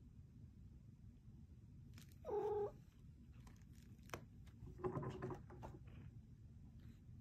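Domestic cat giving a short meow about two seconds in, then a second, rougher meow a few seconds later, with a few faint clicks between them.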